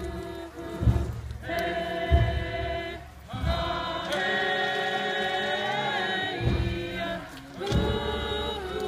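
A group of voices singing a Haida dance song in chorus over a slow low beat, with one long note held near the middle.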